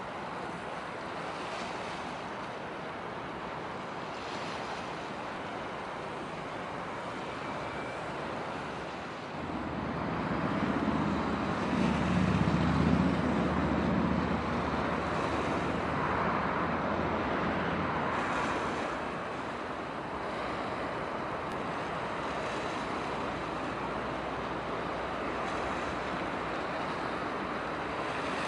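Wind noise on the microphone over the wash of water, with a low rumble that swells sharply about ten seconds in and eases off about ten seconds later.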